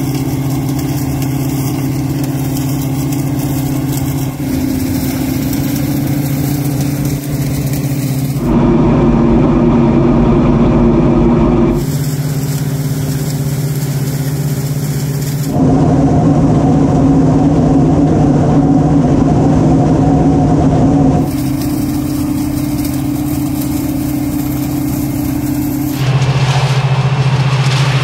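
Oxbo 9630 sweet corn harvester running as it picks, a steady engine drone with machinery noise. The level and pitch jump abruptly several times.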